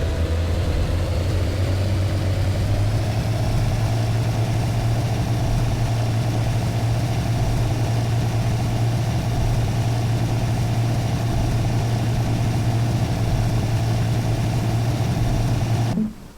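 Steady low engine drone at constant speed, starting and cutting off abruptly.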